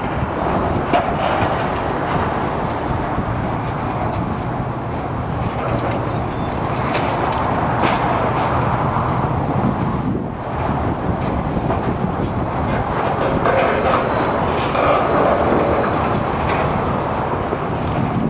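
High-reach demolition excavator running steadily under load while its hydraulic crusher jaws chew into reinforced concrete, with scattered sharp cracks of breaking concrete.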